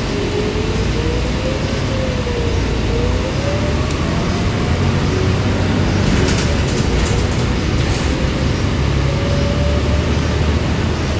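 A 2020 Gillig BRT 40-foot transit bus under way, heard from inside: a steady low rumble, with a whine that wavers and rises in pitch over the first five seconds, then fades and returns briefly near the end. A few light rattles come around the middle.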